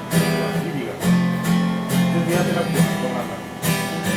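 Acoustic guitar strumming chords in a steady rhythm, with a firm strum about once a second.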